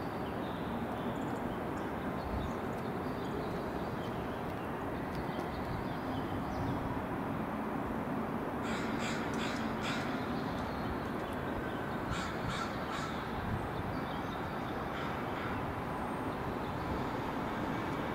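A bird cawing in two short runs of calls, four in quick succession about eight and a half seconds in and three more about twelve seconds in, over steady outdoor background noise.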